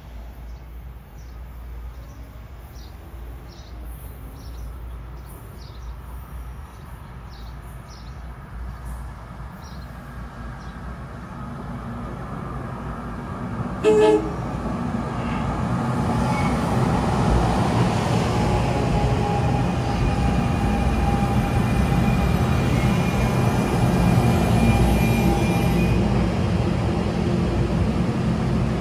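NJ Transit Arrow III electric multiple-unit train approaching, with a rumble that grows louder. It sounds one short horn blast about halfway through, then its cars roll past with a loud steady rumble of wheels on rail.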